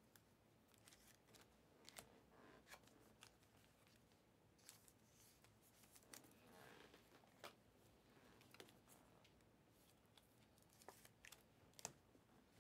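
Faint handling sounds of trading cards and a clear plastic card holder: scattered light clicks and taps, with a short crinkling rustle about six to seven seconds in.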